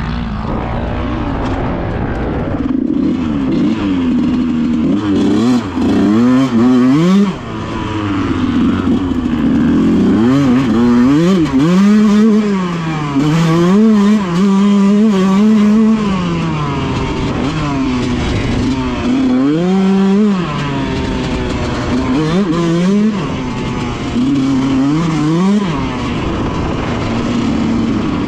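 Yamaha YZ125 125cc two-stroke dirt bike engine being ridden hard, revving up and dropping back again and again, its pitch climbing and falling with each burst of throttle.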